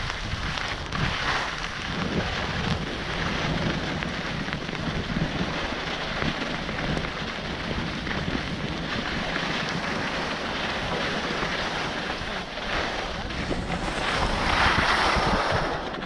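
Wind rushing over the microphone with a steady hiss of sliding over snow during a downhill run on a ski slope, growing louder near the end.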